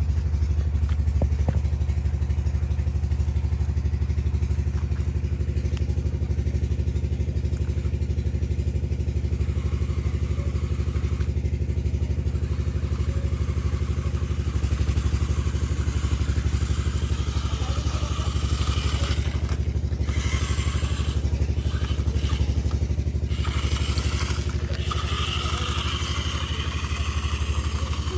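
A tractor engine running steadily at an even, low idle for the whole stretch, with some hissy noise added in the second half.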